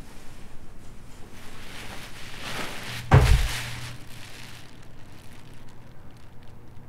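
Film sound-design stinger: a rising whoosh swells up to a sudden deep booming hit about three seconds in, leaving a low steady hum behind it.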